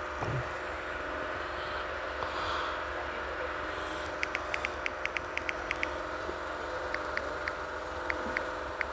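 Steady machine hum, with a quick run of about a dozen light clicks between four and six seconds in, then a few scattered clicks.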